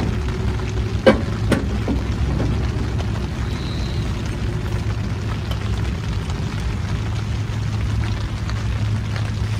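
Two sharp metal clanks, about a second in and half a second apart, from the door of a small homemade steel wood stove being worked. A steady low rumble runs underneath.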